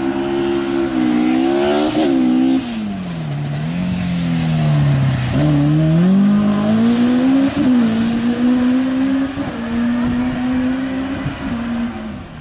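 Ford Escort Mk2 rally car's engine running hard through a sprint course. The revs drop about two seconds in and bottom out around five seconds as it slows for a tight bend. They then climb again and hold high as it pulls away, fading near the end.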